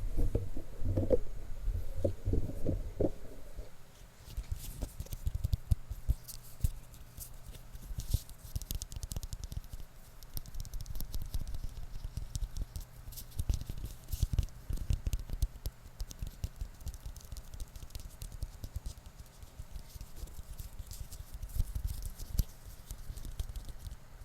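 Close-miked fingertip tapping and scratching: a dense run of small, quick clicks with soft low thumps of handling on the microphone, heavier and lower for the first few seconds, then lighter and crisper.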